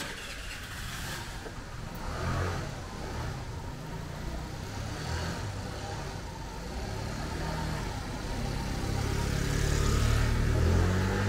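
Small motor scooter engine running as it rides past through a pedestrian shopping street, over general outdoor street noise. Near the end a low drone and music fade in.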